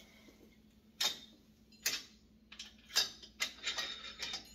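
Sharp metallic clinks and clacks from a home-gym cable weight machine being handled: single clicks about a second apart, then a quicker run of them near the end.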